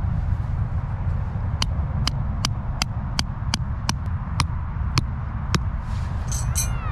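A hammer driving a steel tent stake into firm ground: about ten sharp ringing strikes, two to three a second, the last few more spread out. A steady low rumble runs underneath.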